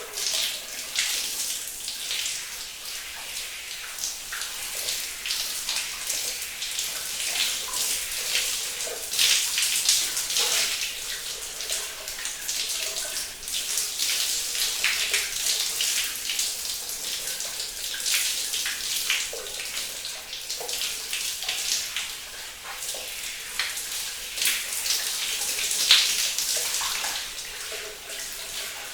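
Running shower: water spraying and spattering steadily onto a hard surface.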